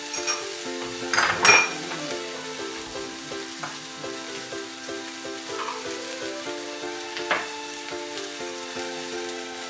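Chopped green chilli and ginger paste sizzling in hot oil in a frying pan, with a loud burst of sizzle about a second in and another shorter one near the end. Cooked soya granules are tipped in and stirred with a wooden spatula, over steady background music.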